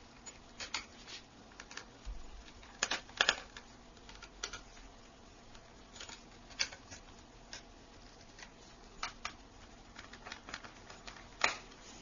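Small screwdriver working the screws out of the plastic underside of an Acer Aspire One 522 netbook: scattered light clicks and taps at an uneven pace, with a few sharper knocks.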